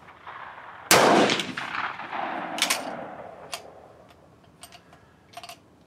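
A single shot from a K31 Swiss straight-pull rifle in 7.5x55 Swiss about a second in, very loud, ringing out for about two seconds under the covered firing line. It is followed by a few sharp metallic clicks as the straight-pull bolt is worked.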